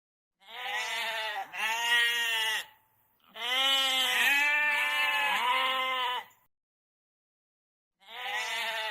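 Goat bleating: two short bleats close together, then a long bleat of about three seconds that wavers up and down in pitch, and another bleat starting near the end.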